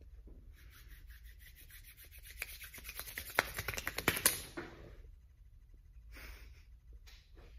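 Hands rubbed briskly together, a fast run of dry rasping strokes that gets louder, with a few sharp smacks of the palms near the end, about four seconds in.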